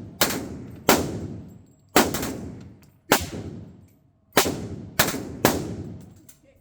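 Submachine gun fired in two-round bursts: a string of sharp gunshot reports about a second apart, each dying away in a short echo.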